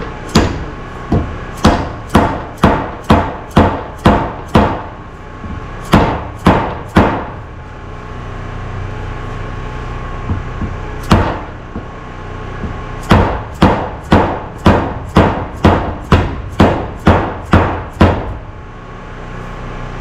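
Hammer driving a steel roll pin into a Dana 44 differential carrier to lock the spider-gear cross pin, metal on metal with a ringing note. The blows come in quick runs of about two to three a second, with a pause of a few seconds in the middle.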